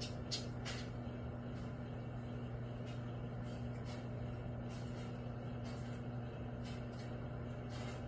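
Microwave oven running: a steady low electrical hum, with a few faint ticks, the loudest about a third of a second in.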